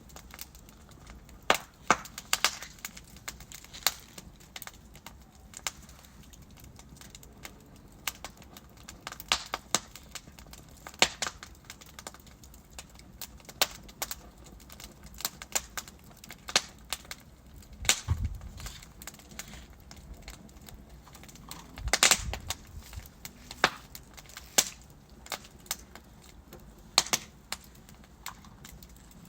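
Wood fire burning in a fireplace: irregular sharp crackles and pops of the burning logs over a faint low hiss, with a few louder snaps, the biggest about two thirds of the way through.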